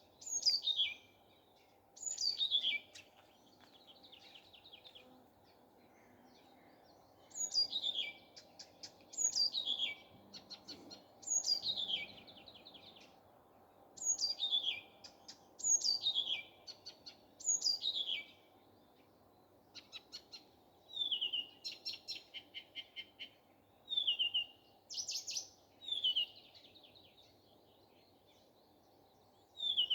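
Nightingale singing: phrases of steeply falling whistles, each trailed by a fast run of dry clicks, repeated about every two seconds with a few pauses. In the second half the phrases change to shorter, lower notes followed by rapid trills. A faint steady background hum lies under the song.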